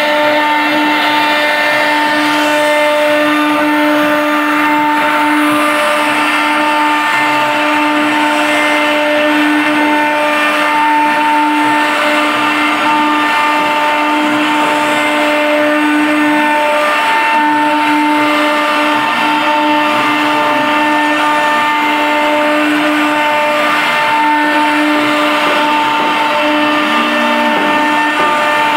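CNC router spindle running at high speed with a steady whine while the bit cuts a grooved pattern into a board, with the hiss of the cutting underneath.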